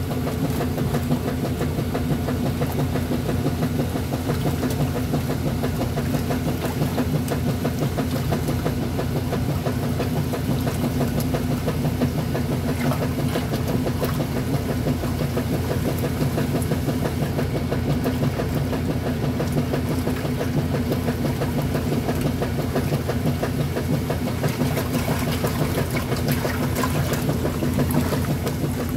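Top-loading washing machine running, a steady hum with a low drone.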